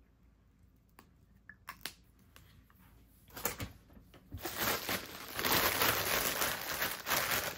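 Thin plastic shopping bag crinkling and rustling as hands rummage through it. It starts about three seconds in, after a few light taps.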